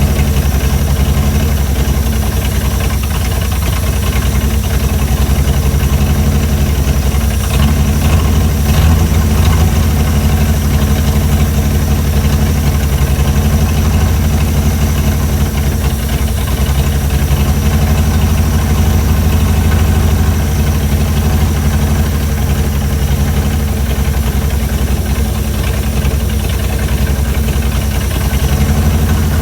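Chrysler Hemi 265 straight-six engine idling steadily, on an early run while its idle is being set, with slight swells in speed and level.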